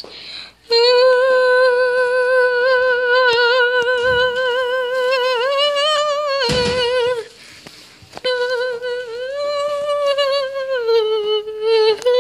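A young girl humming long, held notes close to the microphone, with a slight wobble in pitch. About seven seconds in the hum breaks off after a short rush of noise, then resumes with a note that steps up and then down before settling back.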